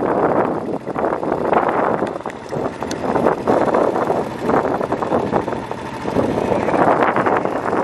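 Wind buffeting the microphone in loud, uneven gusts while riding a quad bike, with the bike's engine running underneath.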